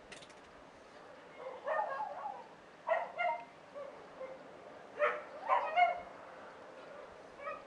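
A dog barking in short runs of two or three barks, a run every couple of seconds.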